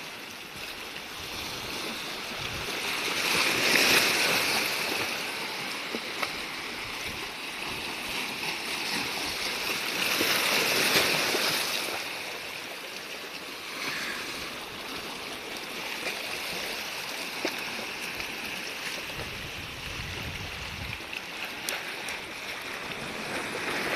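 Sea waves washing in with a steady hiss of moving water, swelling into two louder surges about four and eleven seconds in.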